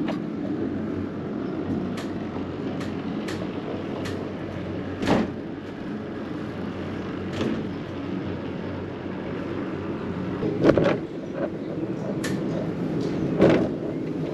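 Cliffside funicular car running down its steep track, a steady rumble from the car and rails with scattered clunks and clicks, the loudest two near the end.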